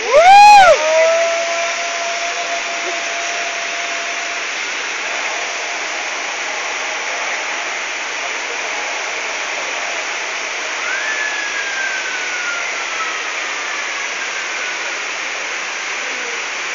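Steady rush of flowing water throughout. Right at the start there is a brief, very loud voice-like cry that rises and falls in pitch. A faint falling whistle-like tone comes about 11 seconds in.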